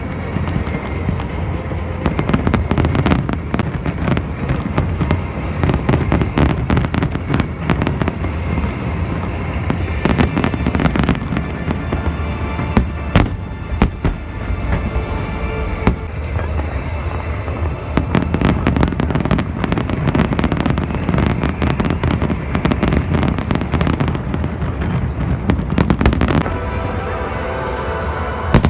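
Fireworks display: a dense, continuous run of bangs and crackles over a low rumble, with music playing underneath.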